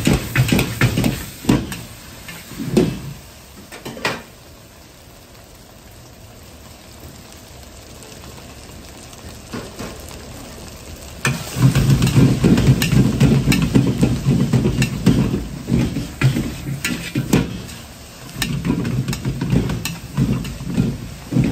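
Stir-frying rice in a wok with a metal ladle: the ladle clanks and scrapes against the wok while the rice sizzles. From about four to eleven seconds in, only a quieter steady sizzle is heard, then loud stirring and scraping resume.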